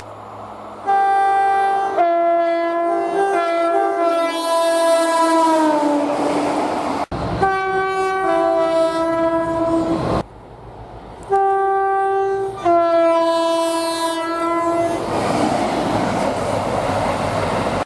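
Railway locomotive two-tone air horns sounded in three separate clips, high and low notes alternating, cut abruptly from one to the next. In the first and last, the notes sag in pitch as the train passes, and the last is followed by the noise of the passing train until the sound cuts off.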